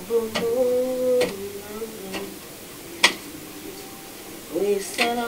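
A woman humming a few held notes while tidying, with several sharp clicks and knocks of things being handled on a tabletop; the loudest click comes about three seconds in.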